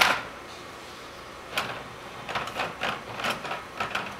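Hands twisting a plastic wire nut onto thermostat wires in a metal electrical box: a sharp knock at the start, then from about a second and a half in a run of small plastic-and-metal clicks and scrapes as the wires are handled.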